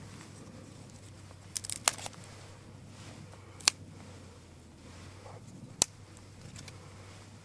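Newly lit campfire burning, giving a few sharp pops and crackles: a quick cluster about two seconds in, then single pops near the middle and again later.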